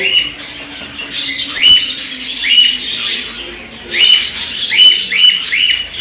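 Cockatiel giving repeated short, harsh calls, each ending in a quick falling note, about eight in two bunches, as it struggles against being caught by hand in a wire cage. Wing flapping and rustling go with the calls.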